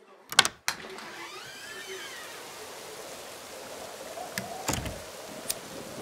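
A sharp knock about half a second in, then a steady rush of storm wind and rain, with a few short clicks and a dull thud near the end.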